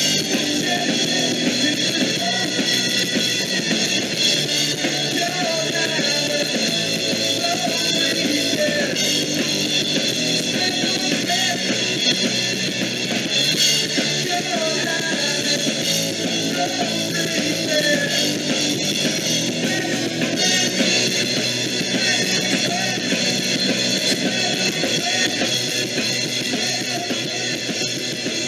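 Rock band music: electric guitar and drum kit playing a steady rock song.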